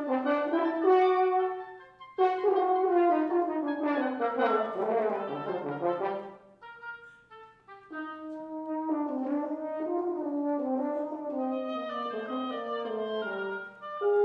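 French horn playing a solo concert-music passage. A dense, busy stretch of notes comes about two to six seconds in, then a short break, then a slower phrase stepping down in pitch.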